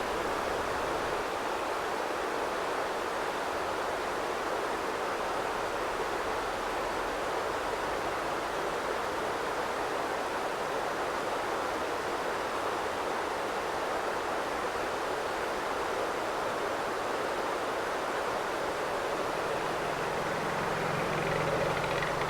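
Heavy river flow pouring through an open weir: a steady rush of water.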